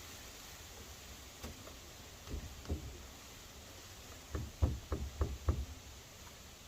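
Dull knocks on a wooden deck board. Two single knocks come first, then a quick run of about six as the board is knocked into position to set its gap.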